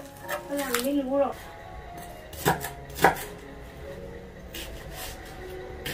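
Kitchen knife cutting on a cutting board, a few separate knocks, the two loudest about two and a half and three seconds in.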